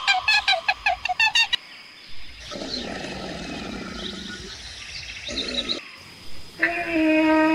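Rapid goose-like honking calls for about a second and a half. Then a low, rough growl for about three seconds. Near the end a long, steady pitched call starts.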